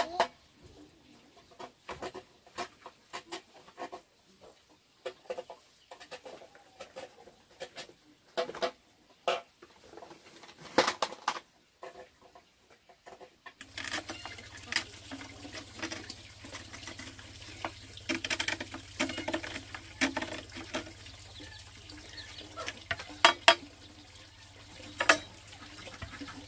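Scattered light clicks and knocks of a small child handling plastic toys, then, from about halfway through, a knife cutting and carving into green bamboo tubes: irregular sharp taps and scrapes, with a couple of louder knocks near the end.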